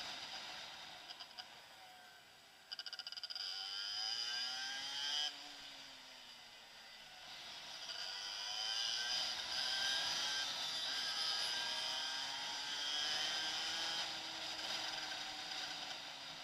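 Motorcycle engine running at low speed, its pitch rising and falling several times as the throttle is opened and eased, over a steady hiss of wind and wet tarmac. A rapid run of clicks comes in about three seconds in and stops sharply a couple of seconds later.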